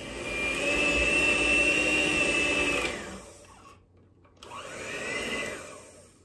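Electric hand mixer running, its beaters whirring through banana bread batter in a ceramic bowl. It runs steadily for about three seconds and winds down, then after a short pause is switched on again for a second, shorter run that rises and falls in pitch.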